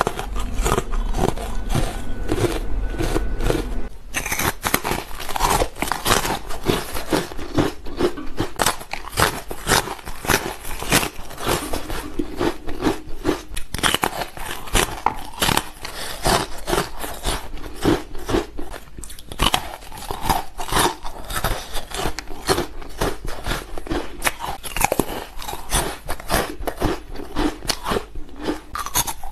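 Frozen carbonate ice being bitten and chewed close to the microphone: a dense, continuous run of crisp crunching and crackling bites. A low hum under the first few seconds stops about four seconds in.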